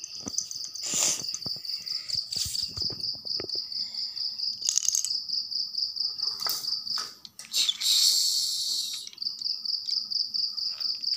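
A cricket chirping in a steady, fast-pulsing high trill, over scattered clicks and rattles from a battery toy train running on its plastic track. A short burst of rustling noise comes about eight seconds in.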